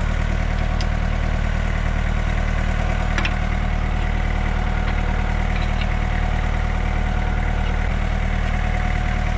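Kubota tractor's diesel engine idling steadily, with a couple of faint clicks about one and three seconds in.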